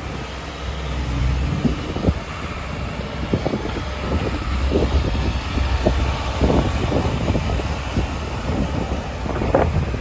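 JCB JS130 tracked excavator's diesel engine running with its hydraulics working as the boom and arm move, with short knocks now and then and wind on the microphone.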